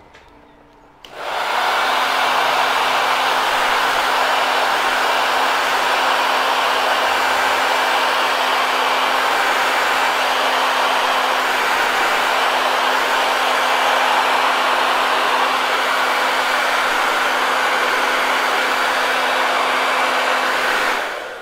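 Handheld electric hot-air dryer switched on about a second in and blowing steadily, a rush of air with a low hum beneath it, drying freshly applied sealer on a wooden box; it switches off near the end.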